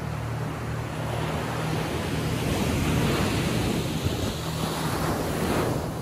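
Atlantic surf: a wave breaking and washing up the beach. Its hiss builds over the first few seconds and falls away suddenly shortly before the end, over a steady low rumble.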